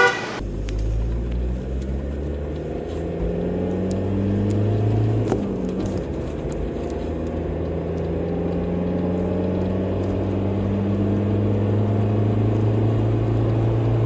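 Diesel vehicle's engine running while driving, heard from inside the cabin. The engine note climbs slowly, dips about five and a half seconds in, then climbs steadily again.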